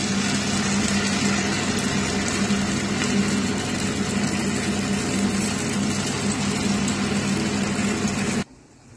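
Hot oil sizzling and bubbling steadily as balls of idli batter deep-fry into bonda, with a steady low hum underneath. It stops abruptly near the end.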